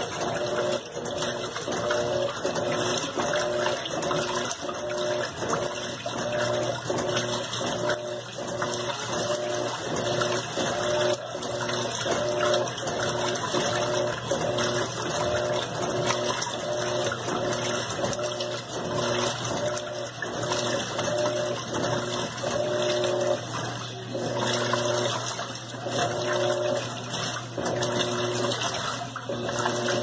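Electrolux LT15F top-loading washing machine agitating a load: water sloshing and churning around the agitator over a steady motor hum. The motor tone pulses on and off in a regular rhythm as the agitator swings back and forth.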